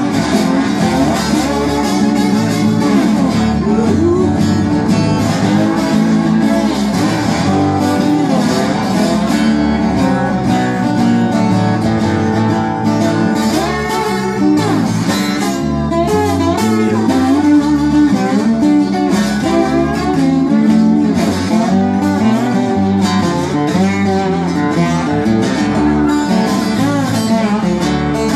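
Live instrumental blues: an acoustic guitar played with a bottleneck slide, its notes gliding up and down, over an electric bass guitar.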